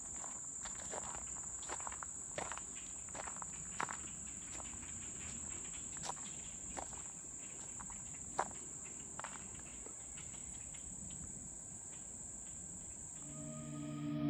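Footsteps on a dirt woodland trail at a steady walking pace, about one and a half steps a second, over a continuous high-pitched insect drone. The steps thin out after about ten seconds, and soft music fades in at the very end.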